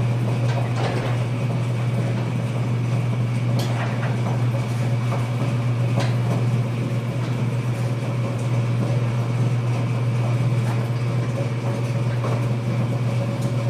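Motorized garage door running: a steady low motor hum with light clicks and rattles throughout.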